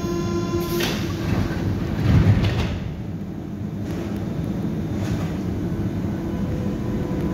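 Athens metro train at the platform: the beeping door-closing warning tone stops about a second in, and the sliding doors shut with a thud about two seconds in. After that comes the train's steady low hum as it stands ready to leave.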